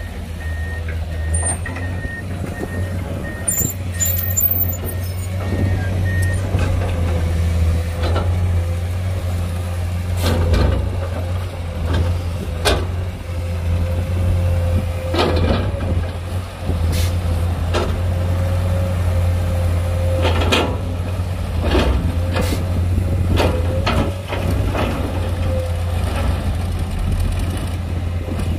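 Diesel engines of a dump truck and a tracked excavator running steadily at a sand dump, with a steady whine over the drone. A reversing alarm beeps for about the first six seconds, and sharp knocks and clanks come now and then as the truck tips its load and the excavator works.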